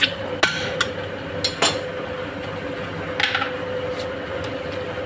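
A metal spoon or ladle clinks and knocks against a large metal cooking pot several times in the first two seconds, then once more just past the middle, over a steady hum with one held tone.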